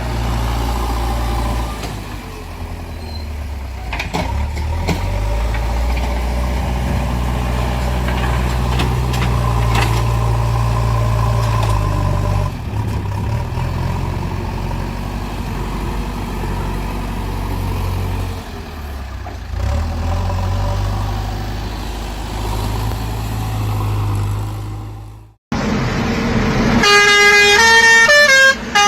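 A truck engine running steadily with a low drone. About 25 seconds in it cuts off abruptly, and a quick melody of stepped, pitched notes begins.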